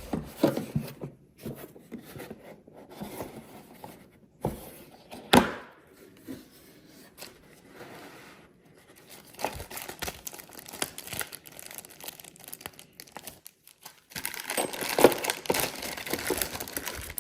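Packaging being handled and unwrapped: crinkling and tearing of plastic and cardboard, with scattered clicks and one sharp knock about five seconds in. The crinkling grows denser near the end.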